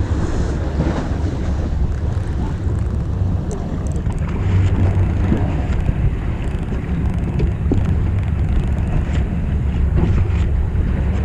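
Steady low hum of a fishing boat's engine, with wind buffeting the microphone and sea water washing.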